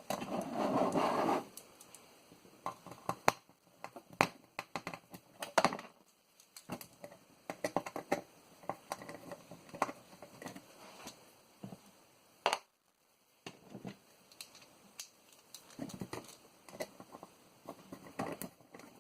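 Handling noise from taking apart a floppy disk drive: small metal and plastic parts clicking, tapping and scraping as they are worked at and pried. A longer, louder scrape comes in the first second or so, then scattered clicks.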